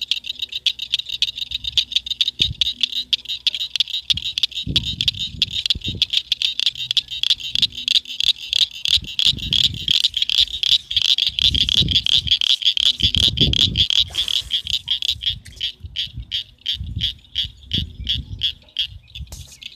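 A frog calling in a long fast series of clicking chirps, weakening over the last few seconds. Low thumps come and go under it through the middle.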